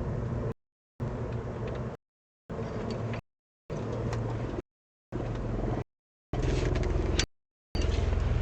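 Glitching webcam audio stream that keeps cutting in and out, about three-quarters of a second of steady low hum and rumble, then half a second of dead silence, repeating. The pieces get louder about six seconds in.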